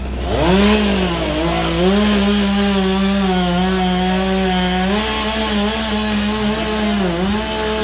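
Two-stroke chainsaw revved up and held at high speed cutting wood, its pitch sagging briefly a few times under load, then dropping off at the end. A steady low engine hum runs underneath.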